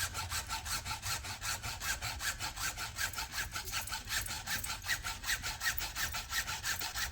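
Hand hacksaw cutting through acrylic scales, with quick, even back-and-forth strokes.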